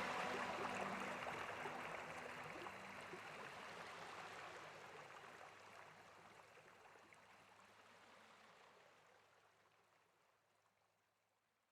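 Running water, like a stream, as a steady rushing hiss that fades away gradually to near silence. A few held music notes die out in the first couple of seconds.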